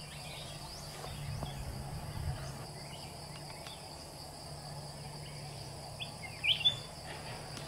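Steady high-pitched insect drone over a low steady hum, with a short chirping bird call about six and a half seconds in.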